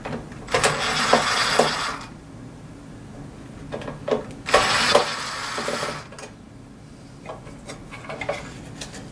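Screwdriver backing two screws out of the TV's metal chassis, each screw a dense burst of about a second and a half, the first about half a second in and the second about four and a half seconds in. Small clicks and knocks of parts and screws being handled follow.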